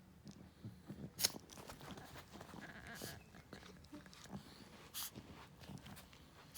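An animal coughing: a few short, sharp coughs about two seconds apart, the strongest about a second in.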